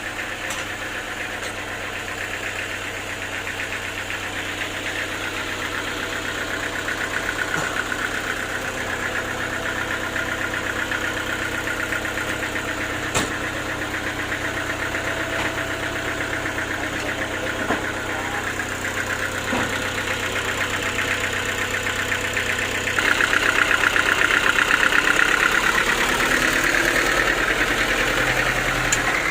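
Sawmill engine running steadily, getting louder for a few seconds near the end, with a couple of sharp clicks.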